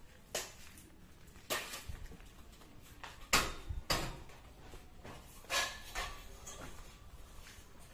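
Scattered metal clanks and knocks from steel tent-frame pipes and arched rafters being handled and fitted together, about six in all, some with a short ring; the loudest comes a little over three seconds in.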